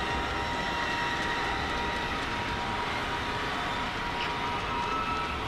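Steady background rumble and hiss of distant traffic, with a faint steady hum held through it.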